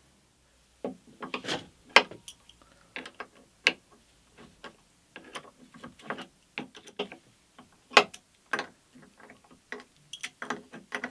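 Steel spanners turning the nuts and bolts that hold a cast-iron pillow-block bearing to the drum sander's frame: irregular metallic clicks and short rasps, starting about a second in.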